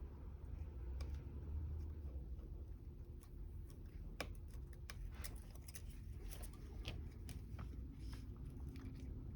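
Scattered light clicks and small scrapes of hand tools working on a phone's front glass during wire separation of the glass from the display, over a low steady hum.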